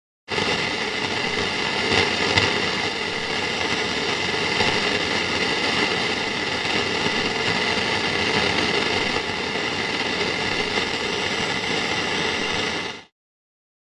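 A steady engine running evenly, a continuous mechanical hum and rush without rises or falls. It starts abruptly and cuts off suddenly near the end.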